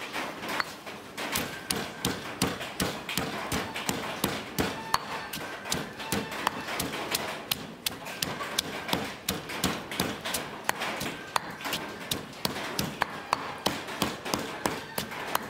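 Stone pestle pounding garlic, galangal and red chillies in a heavy stone mortar, a steady run of sharp knocks at about three strokes a second as the aromatics are crushed to a paste.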